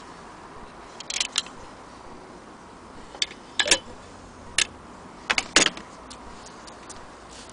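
Sharp metallic clicks and clinks, a handful of them scattered in small clusters, as the metal fittings and attachments of an antique Singer 15K80 hand-crank sewing machine are handled; the loudest is a quick pair about five and a half seconds in.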